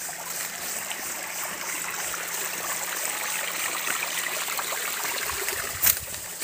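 A rocky stream running, a steady rush of water, with one sharp snap near the end.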